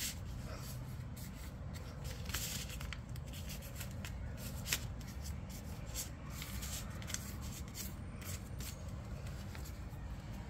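Sheet of paper being folded and creased by hand into a paper plane: irregular crinkles and rustles as the paper is collapsed along its creases, with one sharper crackle a little before the middle, over a steady low hum.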